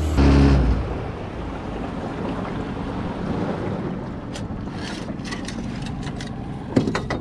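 A boat motor running under way for about the first second, then wind on the microphone and water around the small boat, with a few sharp clicks and knocks from the camera being handled near the end.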